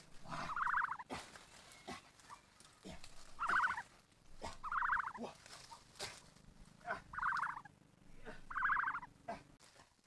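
Ostrich chick calling: five short trilled calls at uneven intervals, with sharp clicks scattered between them.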